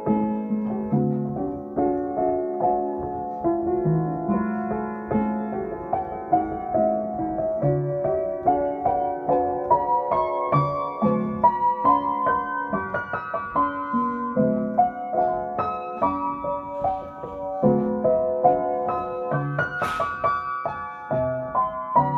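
Gospel praise music played on piano: a melody over chords, with notes struck several times a second.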